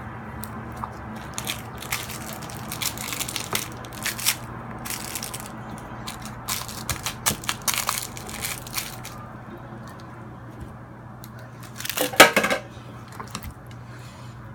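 Hands digging and squeezing through a large mass of slime, making many short wet crackles and squelches, busiest in the first nine seconds. A louder burst comes about twelve seconds in.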